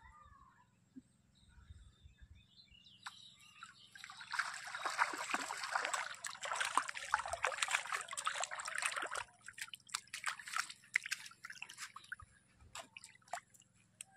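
A hooked catfish thrashing and splashing in muddy shallow water at the bank as it is landed: a burst of splashing starts about four seconds in and lasts about five seconds, followed by a few smaller splashes.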